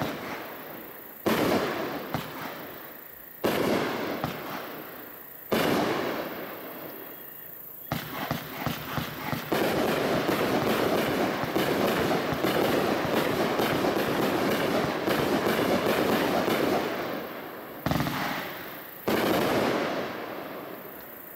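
A 30-shot white strobe fireworks cake firing. Single shots go off about every two seconds, each trailing off in crackle. From about ten seconds in, the shots come fast in an unbroken volley for some seven seconds, then two more single shots follow.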